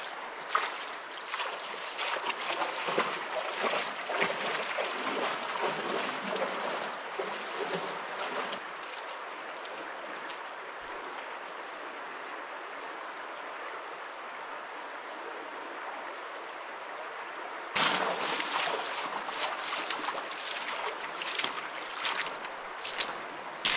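Shallow, muddy river water rushing steadily over sand, with the splashing footsteps of a hiker wading through it. The splashes fade over the first several seconds, leaving only the even rush of water. Then, about three-quarters of the way through, they come back suddenly, loud and close.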